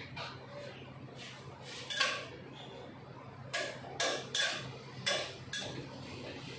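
Metal spatula scraping and knocking against a wok while stir-frying: a string of short strokes, the loudest about two seconds in and a quick run of four more near the end.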